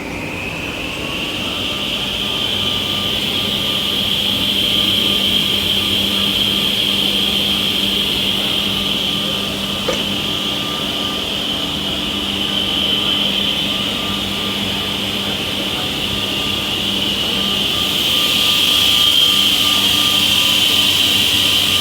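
WoodTec Compact mini 300 automatic edgebanding machine running, its motors giving a steady high-pitched whine over a lower hum. The whine rises slightly at the start as it comes up to speed, and there is a single click about ten seconds in.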